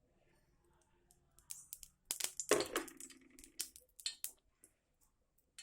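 Kitchen handling sounds as cooking oil is added to a pan on the stove: a run of sharp clicks and clinks starting about a second and a half in, with a short pour in the middle.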